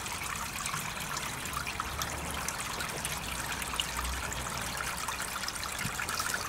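Water trickling steadily through the open channel of a drain inspection chamber.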